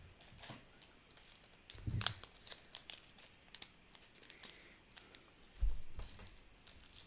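Sprinkles being shaken out over slime: scattered light ticks and rattling mixed with crinkling from handling the packaging, with two dull thumps about two and six seconds in.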